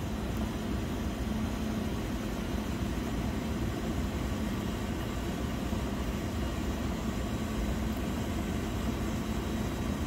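Steady mechanical hum of the York air-cooled chiller's two motorized valves being driven through calibration, with a steady low tone; the noise lasts until the valves bottom out.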